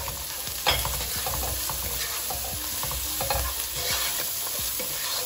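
Chopped onions, whole spices and ground spices sizzling in hot oil while a wooden spatula stirs and scrapes them around a nonstick pan. This is the spices frying off before the tomato goes in. A sharper knock of the spatula comes a little under a second in.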